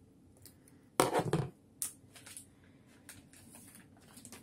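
A trading-card pack being opened by hand: a short loud clatter about a second in, a smaller click just after, then faint rustling of the wrapper as the cards are slid out.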